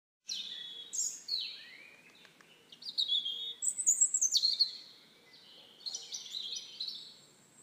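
Birdsong: a songbird singing in about four short phrases of quick, high chirps and whistles, with short pauses between them.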